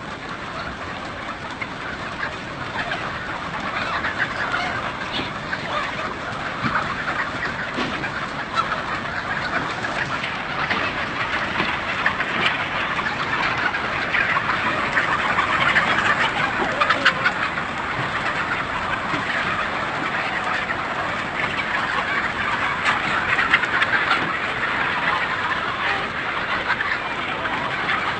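A huge flock of chickens, thousands together, calling all at once: countless overlapping clucks and cheeps merge into one continuous, dense chorus.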